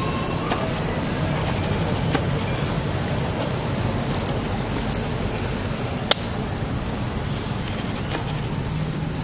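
Steady low outdoor rumble with a thin, steady high hum above it, broken by a few sharp clicks, the loudest about six seconds in.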